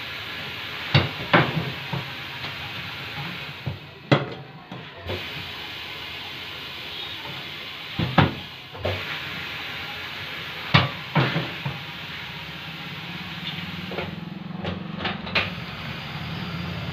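Pneumatic bead breaker of a tyre-changing machine pressing the bead of a tubeless car tyre off its steel rim: a steady air hiss with sharp metal knocks every few seconds. A low hum comes in near the end.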